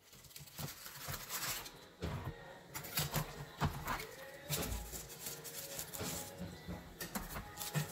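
Metal spatula scraping under baked cookies on parchment paper and setting them down on a wire cooling rack: irregular scrapes and light knocks.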